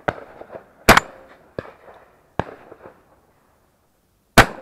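Two shotgun shots fired from the Browning Gold Fusion semi-automatic the camera is mounted on, about a second in and again near the end, about three and a half seconds apart, the second the loudest. Smaller sharp knocks fall in between.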